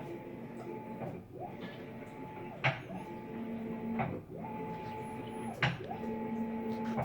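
Maytag MVWB765FC top-load washer agitating: the drive motor's whine rises, holds and falls with each stroke, about one stroke every second and a half, with a loud sharp click twice, about every three seconds. The owner takes the click for a loose drive gear or retaining part slapping; the service technician called it the clutch cycling on and off, normal for this model.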